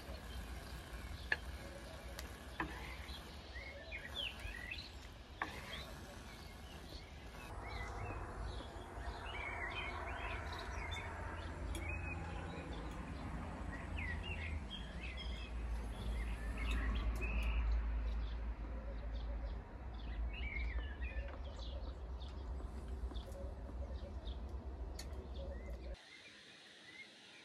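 Small birds chirping and calling on and off, over a low steady rumble. A few sharp clicks sound in the first several seconds, and the whole background drops suddenly near the end.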